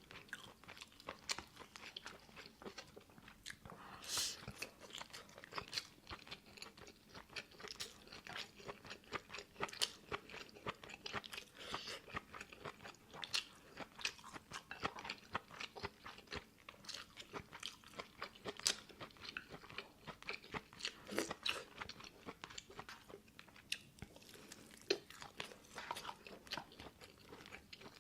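A person eating close to the microphone: chewing with frequent short, crisp crunches and mouth clicks.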